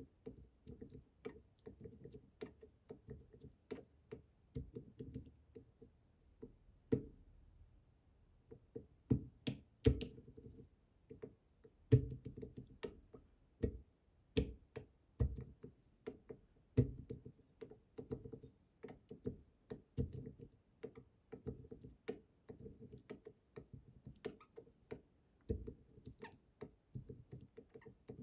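Pin clicks and light metal taps from a pick pushing the tapered pins of an IZIS Bramah-style pump lock while it is held under tension, irregular and quiet, with a few sharper clicks in the middle.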